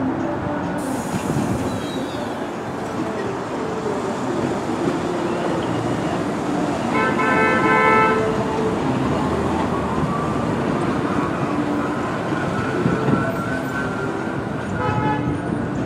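Bombardier R62A subway train pulling out along the elevated steel structure, its wheels rumbling steadily on the rails, with a faint rising whine as it gathers speed. About seven seconds in a horn sounds for about a second and a half, and a shorter horn note follows near the end.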